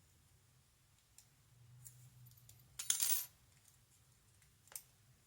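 Small metal objects jingling briefly about three seconds in, with a few light clicks before and after: metal lock-picking tools and padlock hardware being handled.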